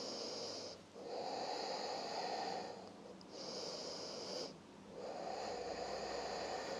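A woman breathing slowly and audibly while holding a yoga twist on the floor: four long breaths, each about a second and a half, with short pauses between them.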